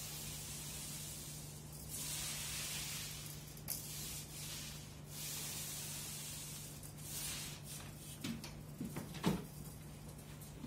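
Paint roller on an extension pole rolling water-thinned emulsion paint onto a wall: a soft hiss that swells and fades with each stroke of a second or two. Near the end come a few light clicks and knocks. A steady low hum runs underneath.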